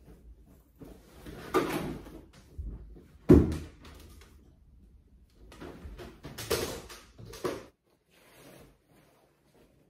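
Bedding and fabric being handled and shaken out, with rustling swishes and irregular knocks; the loudest is a sharp thump about three seconds in.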